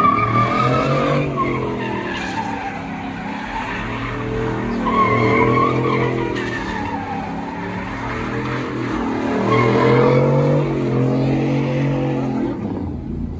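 Pickup truck engine revving hard as the truck spins donuts, its tyres squealing and skidding. The engine note climbs and falls three times, each rise about five seconds after the last.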